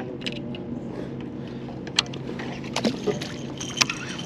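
A live bluegill bait on a heavy catfish rig is lobbed out from a boat with a baitcasting reel: a few sharp clicks from the reel and rod, and a light splash as the bait hits the water about three seconds in, over a steady low hum.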